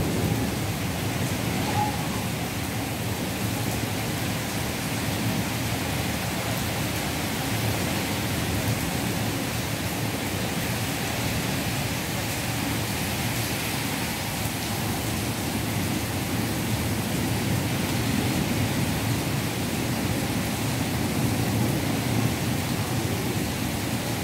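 Heavy rain falling steadily in a thunderstorm, a dense, even hiss.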